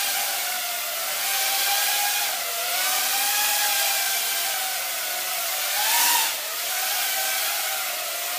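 EMAX BabyHawk brushless micro quadcopter's motors and propellers whining in flight, the pitch wavering up and down with the throttle. There is a brief louder, higher surge about six seconds in.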